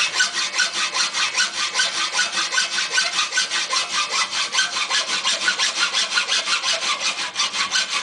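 Hand hacksaw cutting through an aluminium L bracket clamped in a bench vise, in quick, even back-and-forth strokes.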